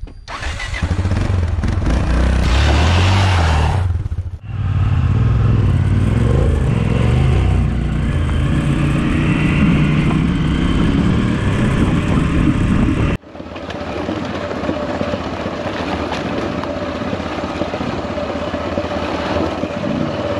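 Single-cylinder dual-sport motorcycle engine running and changing revs while riding a loose gravel track, with wind and road noise. The sound changes abruptly twice, about four seconds in and about thirteen seconds in, and is quieter with less low rumble in the last part.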